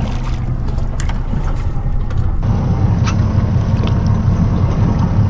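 Steady low rumble of a fishing boat at sea, with a few light clicks and knocks; about two and a half seconds in it changes abruptly to a rougher, noisier rumble.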